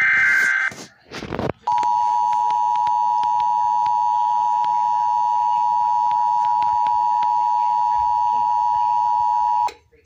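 The end of a TFT EAS 911's SAME header data burst, a short warbling screech, then after a brief rush of noise the two-tone EAS attention signal (853 and 960 Hz together), a steady dual-pitched tone held for about eight seconds that cuts off abruptly.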